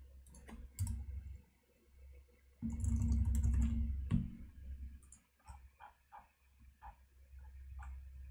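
Computer keyboard typing: scattered, irregular key clicks, with a louder low rumble lasting about a second and a half in the middle.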